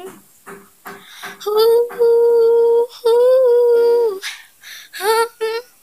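A girl's high voice singing a tune to herself without clear words: a few short notes, then two long held notes from about a second and a half in, and more short notes near the end.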